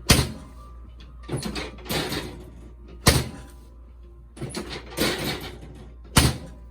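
Chiropractic drop table's drop section clacking down three times, about three seconds apart, as a low-back adjustment is thrust in, with softer scuffing sounds between the drops.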